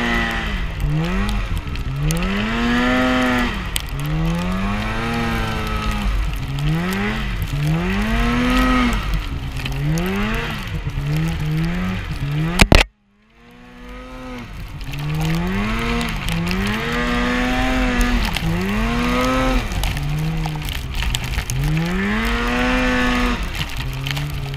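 Snowmobile engine revving up and easing off over and over, the pitch rising and falling every second or two, with a low rumble from wind on the microphone. About halfway through, a sharp click and the sound cuts out for a moment before the engine comes back.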